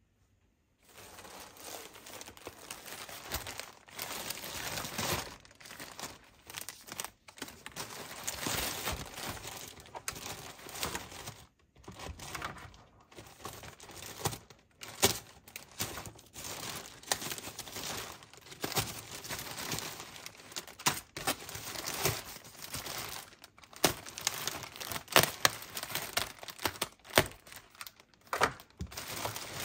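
Packaging being unwrapped by hand: continuous crinkling and crackling with sharp snaps, starting about a second in and broken by a few short pauses.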